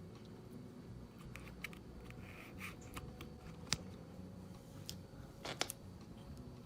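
Faint handling noise from a headphone plug, USB-C adapter and tablet being fiddled with: a few sharp small clicks, the loudest a little past halfway and a quick run of clicks near the end.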